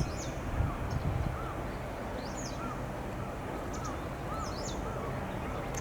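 Birds calling: short, repeated chirps and calls, some high and sharp, over a low steady background hum.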